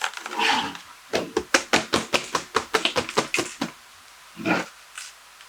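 A rapid run of about twenty sharp taps, roughly eight a second, from a keyboard being tapped and worked over during cleaning, with one duller thump near the end.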